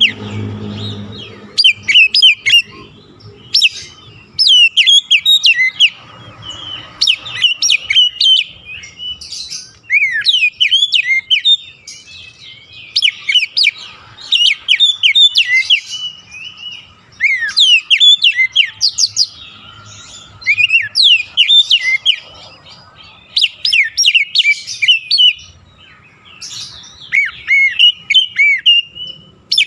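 Oriental magpie-robin (kacer) singing: bursts of rapid, varied whistled and chattering phrases, each a second or two long, with short pauses between them.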